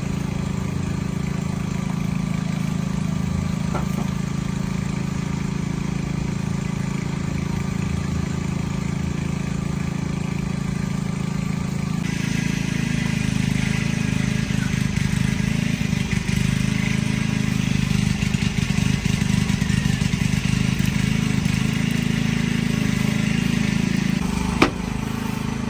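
A small engine running steadily; its sound changes abruptly about halfway through and again near the end.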